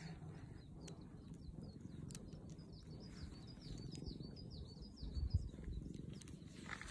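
A bird chirping over and over in a quick run of short, high, falling notes, over a low steady rumble, with a soft low thump about five seconds in.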